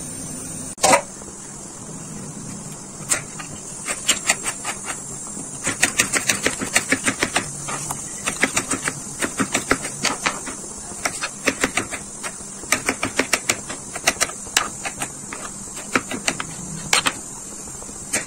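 Knife slicing peeled potatoes thinly on a wooden chopping board: quick runs of sharp taps as the blade goes through and strikes the board, about four or five a second, with short pauses between runs.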